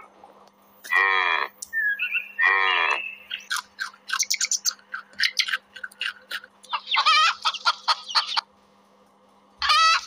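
A string of animal calls and chirps: two pitched calls that drop in pitch, then a rapid run of short chirps, then a longer wavering call. A short pause follows near the end, and another call comes just before it ends.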